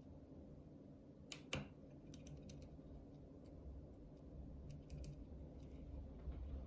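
Faint small clicks and ticks of a pick working the ten wafers of a Ford HU101 car lock. A few sharper clicks come about one and a half seconds in, followed by scattered lighter ticks.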